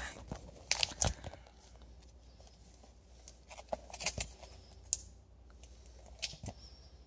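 Comic books being handled and moved around: scattered short rustles and taps, in small clusters about a second in, around four seconds, and near the end.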